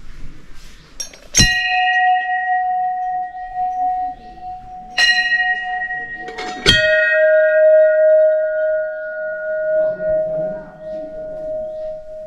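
Hindu temple bells struck by hand three times, a few seconds apart, each stroke ringing on with a long, slowly fading tone. The third stroke is on a slightly lower-pitched bell.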